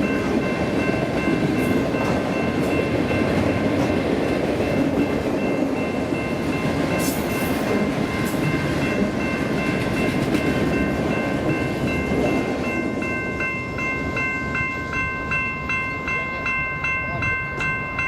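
Freight train of autorack cars rolling past, a steady rumble of wheels on rail that thins after about twelve seconds. A steady high ringing tone runs through it and pulses about twice a second near the end.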